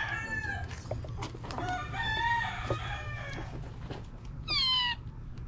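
Rooster crowing: long drawn-out calls near the start and about two seconds in, and a loud call that falls in pitch near the end.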